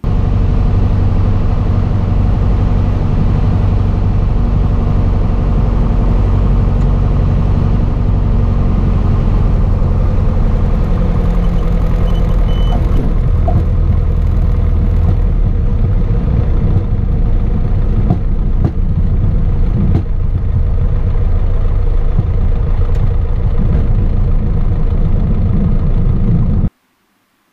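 Piper Cherokee's single piston engine and propeller droning loudly inside the cabin, a steady low drone whose pitch shifts about halfway through. It cuts off abruptly near the end.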